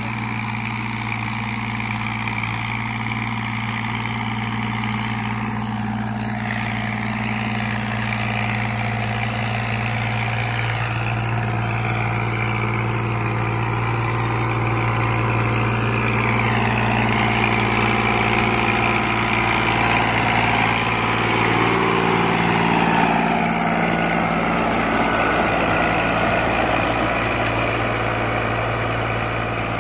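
Farm tractor's diesel engine running steadily while it pulls a rotavator through the soil, growing a little louder as it comes closer over the first two-thirds.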